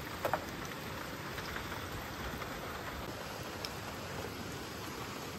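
Steady rain falling, with a couple of light knocks near the start.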